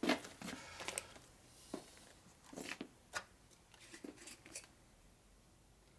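Faint, scattered clicks and light scrapes of small parts and tools being handled on a workbench, a few soft taps a second apart that die away near the end.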